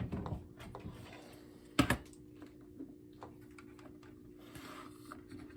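Light clicks and taps of a plastic smoke alarm and its cord being handled, with one sharper knock about two seconds in, over a faint steady hum.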